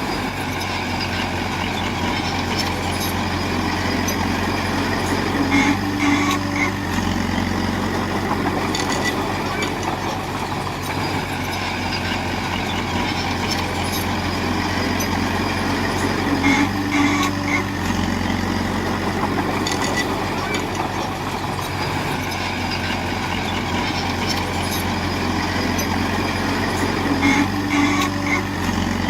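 Heavy diesel engine of an earthmoving machine running steadily under load. Its note shifts in a cycle that repeats about every eleven seconds, three times, with a short higher tone just before each shift.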